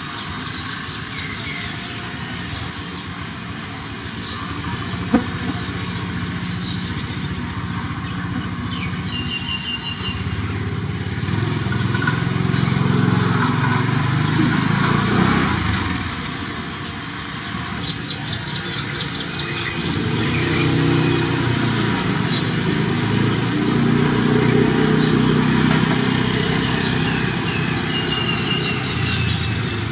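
Motor vehicle engines running, swelling louder twice as if passing and then fading. There is a single sharp click about five seconds in.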